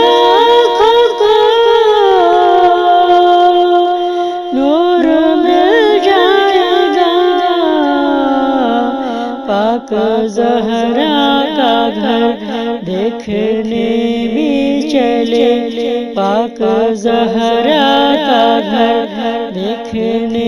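A woman's voice singing a naat, an Urdu devotional song, in long gliding melismatic notes. About halfway through, the notes become shorter and quicker.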